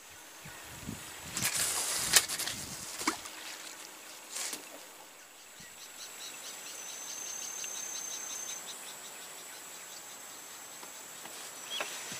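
A few sharp knocks and clicks in the first three seconds or so, then insects chirring: a fast, high pulsing trill with a thin steady whine held for a couple of seconds.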